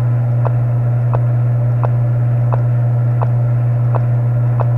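Steady low electrical hum, with faint, evenly spaced ticks about every 0.7 seconds.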